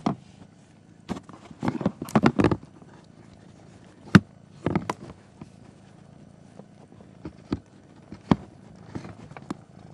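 Irregular short rustles and knocks: a quick cluster about one to two and a half seconds in, then scattered single ones.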